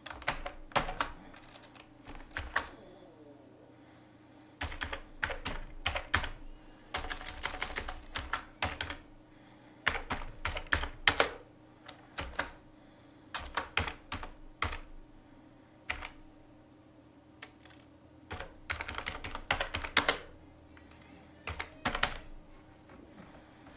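Computer keyboard being typed on, keys clicking in quick runs broken by pauses of a second or two.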